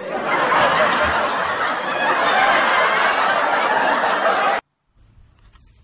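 A person laughing hard, a loud breathy continuous laugh that cuts off suddenly after about four and a half seconds.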